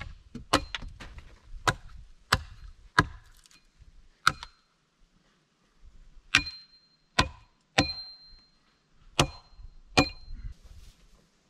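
Axe blows chopping into wood, about ten sharp strikes at an uneven pace, with some blows in the second half giving a short metallic ring.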